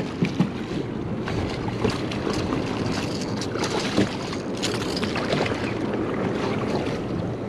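Wind buffeting the microphone and choppy sea water slapping against a small boat's hull, a steady rushing noise with scattered small clicks and knocks.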